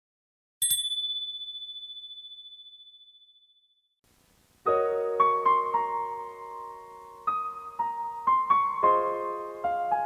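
A single high ding rings out about half a second in and fades away over about three seconds. Then, a little over four seconds in, a gentle piano tune starts, with sustained chords under a stepwise melody.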